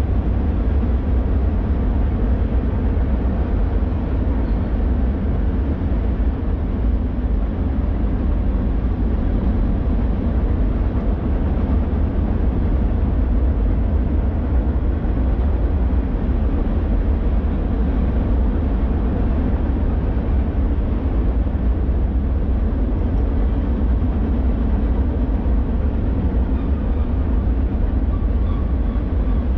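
Freight train cars rolling across a high steel trestle overhead, heard from the canyon floor below as a steady, unbroken low rumble.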